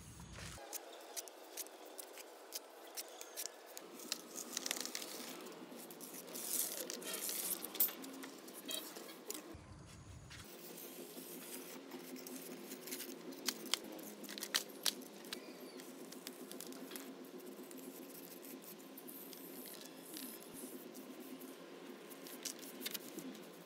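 Irregular small clicks, taps and rustles of hands working small model-building materials, busiest in two spells.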